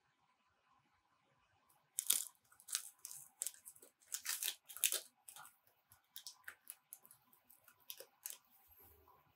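Foil stick packet of Nescafé Gold Blend instant café latte crinkling and being torn open by hand: a run of sharp, crackly rustles starting about two seconds in.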